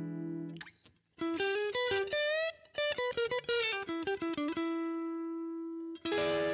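Electric guitar played through a VOX StompLab IIG modelling pedal on one of its Gain-group amp models, an overdriven tone. A ringing chord is cut off, then a quick single-note lick with a string bend settles on a held note, and a new chord is struck near the end.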